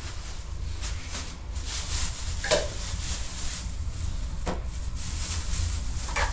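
A few scattered knocks and clatters, like wood or objects being handled, over a steady low rumble.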